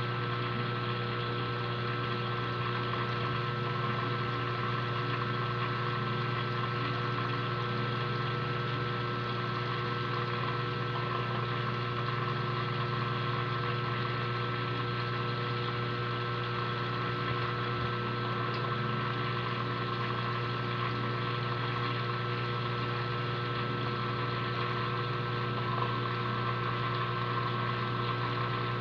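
Aquarium pump humming steadily, with a low mains-type drone, a few fixed higher tones and a light hiss over it.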